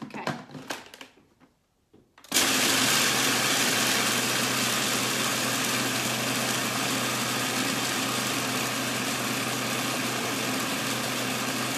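A few short clatters as the food processor's lid and pusher are fitted, then about two seconds in the motor starts and runs steadily, chopping a sticky date, almond and coconut mixture for a slice base.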